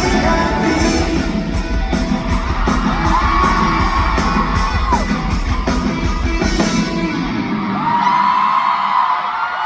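Live rock band with drums and cymbals playing the final bars of a song, the band cutting off about seven seconds in. Then long, high-pitched screams from the audience, one held and gliding upward.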